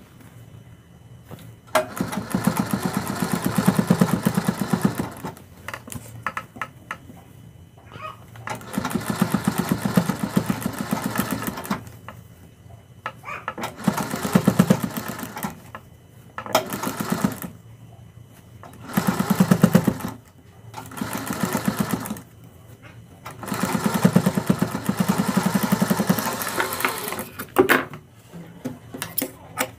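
Domestic sewing machine stitching in short runs of a few seconds each, stopping and starting about seven times, each run a quick even patter of needle strokes. It is topstitching piping along a curved neckline.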